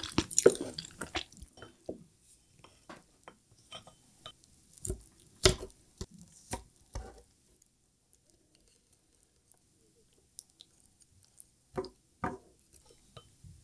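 Close-miked chewing and wet mouth sounds from eating saucy enoki mushrooms, then scattered clicks and taps of wooden chopsticks against a ceramic plate as the mushrooms are handled in the sauce. There is one sharp tap about five and a half seconds in, a quiet stretch, then a few more taps near the end.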